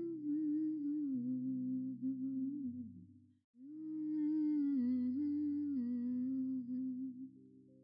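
Slow background music: a wavering wordless melody over held low notes that change in steps. It breaks off briefly about three seconds in, then carries on.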